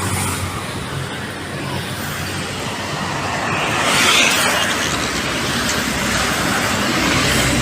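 Highway traffic noise, with a vehicle passing close by: its engine and tyre noise swell to a peak about four seconds in and then ease off.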